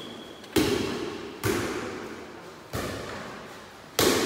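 An air volleyball, a light soft ball, struck by players' hands four times in a rally. Each hit is a sharp slap with a ringing echo off the hall, and the first and last are the loudest.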